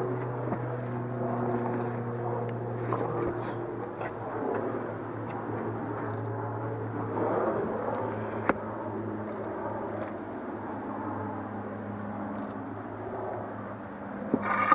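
A motor vehicle's engine idling steadily, a low even hum, with one sharp click about eight seconds in.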